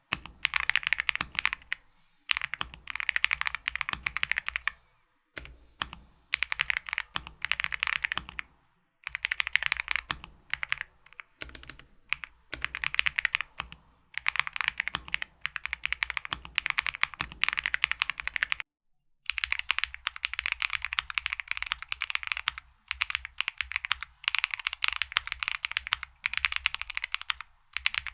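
Fast typing on a Wuque Studio Aurora x Mizu mechanical keyboard with Mizu keycaps, dense keystroke clicks in runs of a few seconds with short pauses. After a pause about two-thirds in, the typing sound changes, with less of its lower body.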